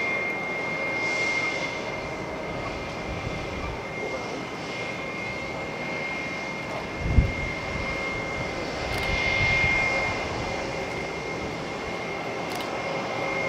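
Boeing 777-300ER's GE90 jet engines running at taxi power: a steady high whine over a broad rumble that swells briefly near the end. A short low thump about seven seconds in.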